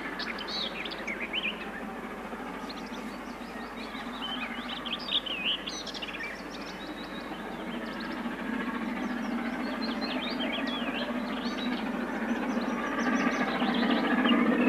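LNER A1 Pacific steam locomotive 60163 Tornado (a three-cylinder 4-6-2) approaching under steam, its running noise a steady rumble that grows louder near the end. Songbirds chirp repeatedly over it.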